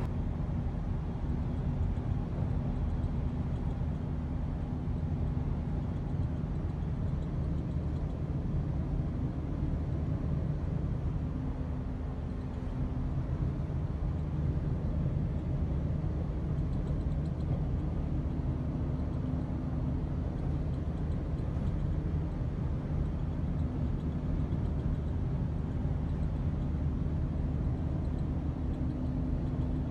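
A vehicle driving steadily: an even, low engine drone with road noise.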